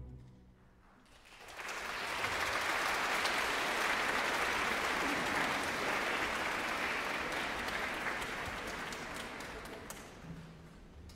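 The last of the orchestra's final chord dies away. About a second later a concert-hall audience breaks into applause, which holds for several seconds and fades out near the end.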